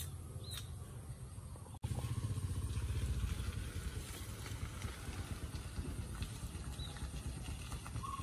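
Outdoor background noise: a steady low rumble with a few faint, short, high bird chirps. The rumble jumps louder at a cut about two seconds in.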